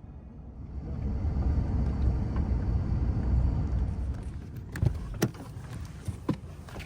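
A road vehicle going past, its low rumble swelling and then fading over a few seconds, followed by a few sharp knocks.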